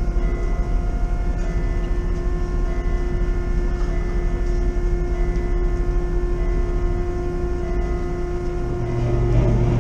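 Steady drone of the MS Chi-Cheemaun car ferry's engines and machinery: a low rumble with several steady humming tones on top. A louder low rumble comes in about nine seconds in.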